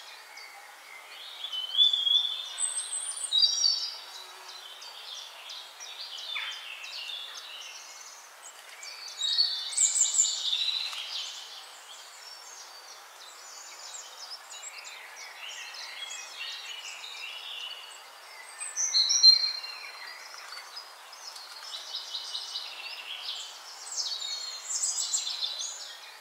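Several birds singing and chirping at once, with short trills and whistled notes overlapping and swelling into louder bouts every few seconds.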